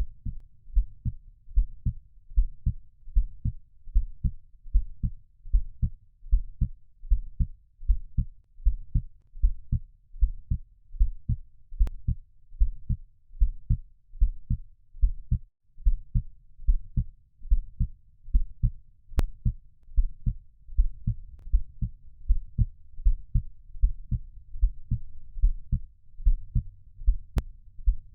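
Recorded heartbeat: low double thumps (lub-dub) repeating at a slow, even rate, with a faint low hum between beats.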